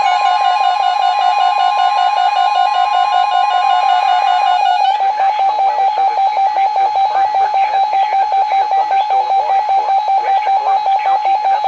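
Weather radio alert tones. For about five seconds a steady high alarm tone sounds together with a warbling tone; then it switches to a rapid beeping alarm, about five beeps a second, with the broadcast voice faint underneath.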